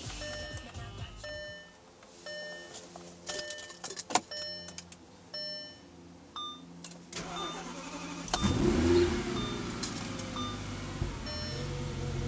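Short electronic beeps repeating about once a second, with a few clicks from the ignition key. About eight seconds in, the 2008 Audi S6's 5.2-litre V10 cranks briefly and catches with a loud flare in revs, then settles into a steady high cold-start idle after standing for over a week at about 20°F.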